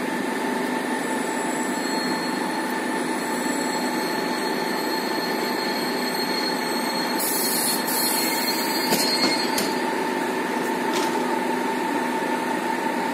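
Trains at a station: a steady hum with several fixed tones from a standing train. A thin high squeal joins about two seconds in, and a burst of hissing comes about seven seconds in; both stop about two and a half seconds later.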